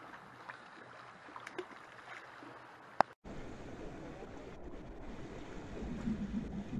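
Calm sea washing and lapping against rocks as a steady, soft noise with a few faint clicks. About three seconds in a sharp click and a brief break cut in, and the sea noise goes on afterwards with a low rumble of wind on the microphone.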